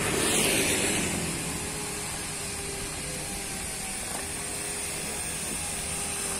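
A vehicle's engine running steadily, with a mechanical rattle.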